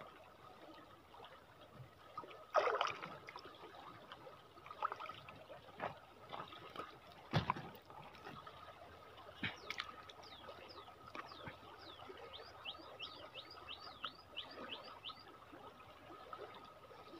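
Faint river water splashing and trickling, with sharper splashes about two and a half seconds in and again about seven seconds in.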